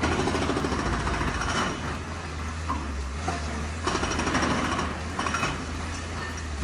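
Excavator demolishing a house: a steady low engine drone under two spells of rapid rattling clatter, one at the start and one about four seconds in, as wall material breaks and falls.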